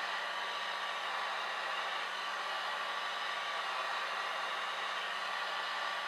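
Small handheld hair dryer running steadily, an even rush of blown air with faint steady motor tones, aimed at wet alcohol ink on paper.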